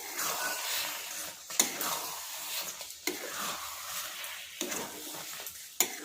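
A thick amla-and-jaggery chutney being stirred in a hot pan, the mixture sizzling, with sharp knocks against the pan about every second and a half as it is mixed.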